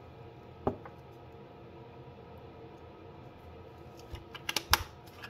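Wooden stir stick clicking and knocking against a small plastic cup as glue and yellow dye are mixed: a single click about a second in, then a quick run of clicks near the end, over a low steady hum.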